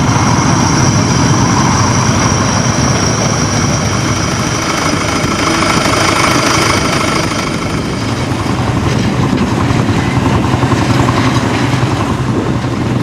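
Engine of vintage working farm machinery running steadily, a continuous low drone.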